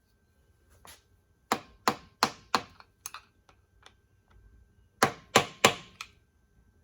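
Hammer strikes on steel, bending the lock tabs of the driveshaft U-joint retainers up against their bolts. Four sharp ringing blows in quick succession, a few lighter taps, then four more blows near the end.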